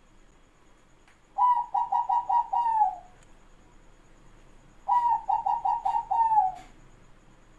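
Zebra dove (perkutut) cooing: two song phrases, each a quick run of about six stuttering notes that ends in a longer falling note.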